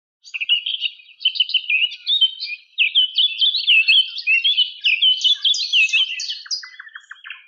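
Small songbird twittering: a fast, varied string of chirps and quick slurred notes, ending in a run of rapid repeated notes.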